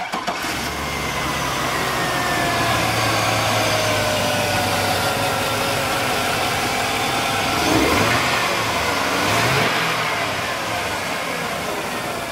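2001 Chevrolet Silverado's Vortec V8 running just after starting, with a whine that slowly falls in pitch as the idle settles. It is revved briefly twice, about eight and nine and a half seconds in.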